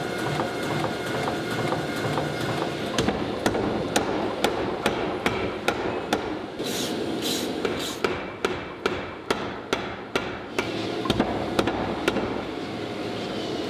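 Repeated hammer strikes on a hot steel Damascus billet during forging, about two to three blows a second. They start about three seconds in, come faster for a stretch, and stop about eleven seconds in.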